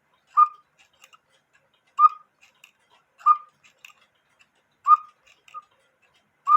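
Cuckoo clock mechanism ticking: a sharp tick about every one and a half seconds, slightly uneven in spacing, with fainter small clicks between.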